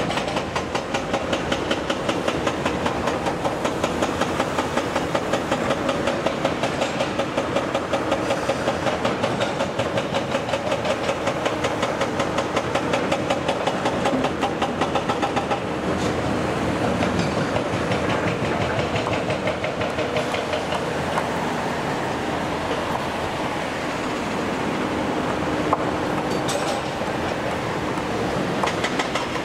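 Case CX370D crawler excavator working: diesel engine and hydraulics under load while digging and slewing. Through roughly the first half the sound comes as a quick regular pulsing clatter, then it turns steadier, with one sharp knock about 26 seconds in.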